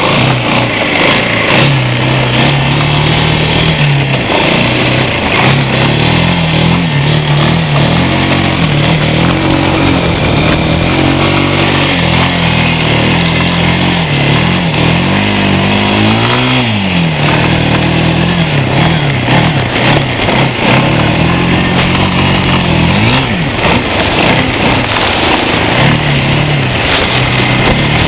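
Four-wheeler (ATV) engine running and being ridden, its pitch rising and falling several times as the throttle is worked, with strong wind buffeting the microphone.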